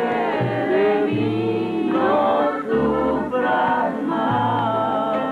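Music of several voices singing together, with steady low notes that change about once a second underneath.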